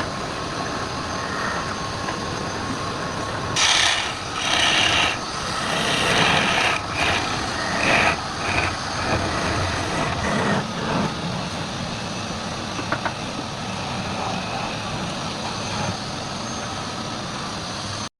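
Wood lathe running steadily, with a turning tool scraping against the spinning wood in a series of loud, uneven bursts between about four and eleven seconds in.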